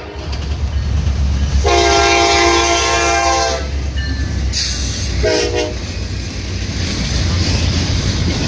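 Diesel freight locomotive's multi-chime air horn sounding for a grade crossing: the tail of one blast at the start, a long blast about two seconds in and a short blast about five seconds in, the long-long-short-long crossing signal. Underneath, the low rumble of the locomotive and its cars rolling past grows louder.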